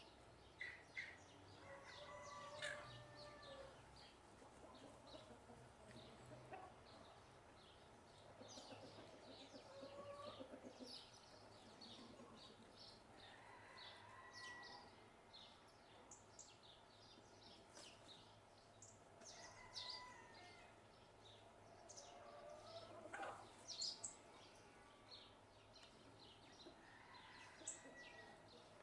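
House sparrows chirping faintly in short, scattered calls as they forage, with a chicken clucking now and then in the background.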